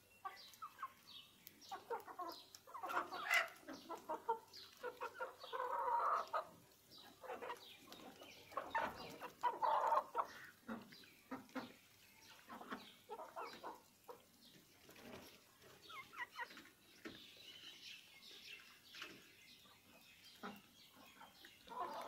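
Chickens clucking in short, irregular calls, several louder bursts among them in the first half.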